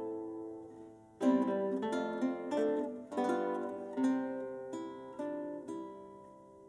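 Two nylon-string classical guitars playing a duet in plucked notes and chords. A chord dies away about a second in, then a short phrase follows, and a last chord rings and fades out.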